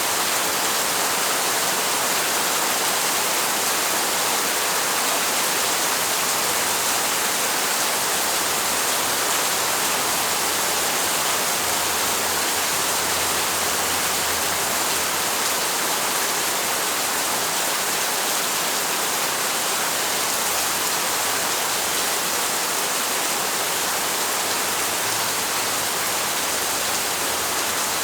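Steady, even rainfall: a continuous hiss of rain with no distinct drops or pauses.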